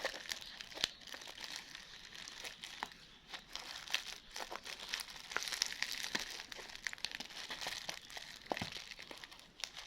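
Packaging crinkling and rustling as a parcel is unwrapped by hand, with scattered small clicks and taps.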